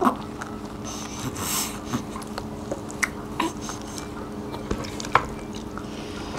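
Eating by hand at a table: scattered light clicks and taps of fingers and food against plates, with chewing, over a steady low hum. A few sharper clicks stand out, about three and five seconds in.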